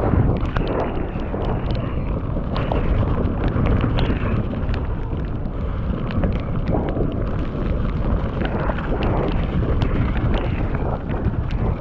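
Mountain bike descending a wet dirt trail at speed: wind rumbling on the microphone over tyre noise, with frequent sharp clicks and rattles from the bike over rough ground.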